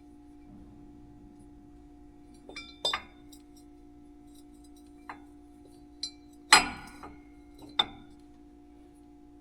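A handful of sharp metallic clinks and knocks from hand tools and metal parts being handled, some ringing briefly, the loudest about two-thirds through. A steady low hum runs underneath.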